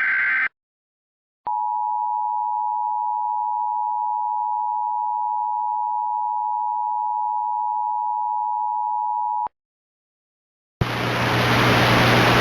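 Emergency Alert System audio: the last half-second of a SAME digital header burst, then the EAS attention signal, the steady two-tone 853 and 960 Hz alert, held for about eight seconds and cutting off sharply. Near the end a hiss with a low hum comes up, the start of the voice message's audio.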